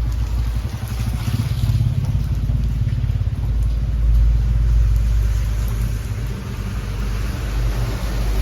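Steady rain hissing, under a deep low rumble that swells about four seconds in and eases off again.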